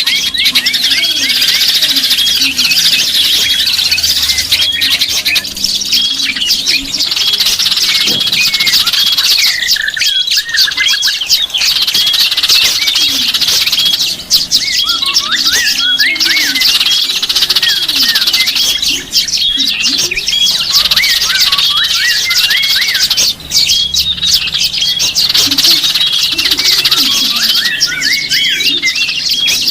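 A dense chorus of many small songbirds chirping and calling at once, with short high notes repeating rapidly.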